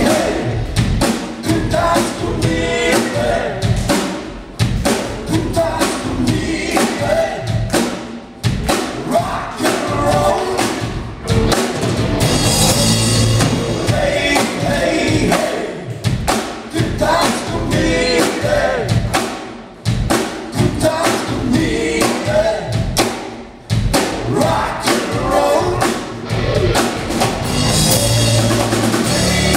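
Live rock band playing: electric guitar and bass guitar over a drum kit.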